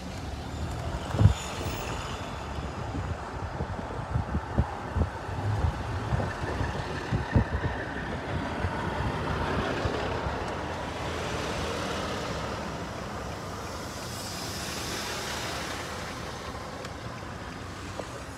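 Road traffic noise heard from inside a vehicle: a steady engine and road rumble, with a series of low thumps in the first half and a swell of passing-vehicle noise that rises and fades in the second half.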